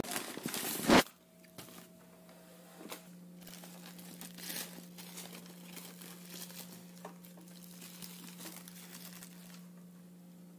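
Aluminium foil and paper wrapping crinkling and rustling in bursts as a takeout burger is unwrapped by hand, over a steady low hum. It is preceded by about a second of loud shop noise that cuts off abruptly.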